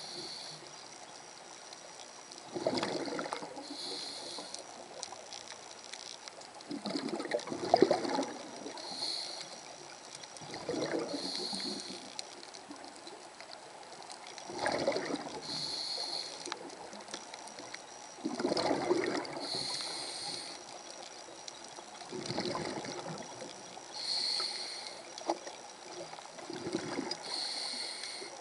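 Scuba diver breathing through a regulator: a short hissing inhale, then a bubbling rush of exhaled air. The cycle repeats about every four seconds.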